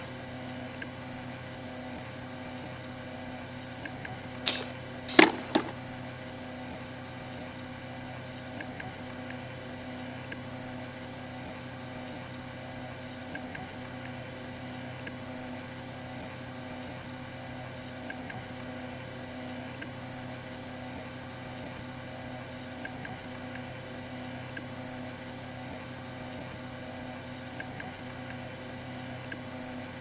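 A steady low hum, with two sharp knocks about four and a half and five seconds in.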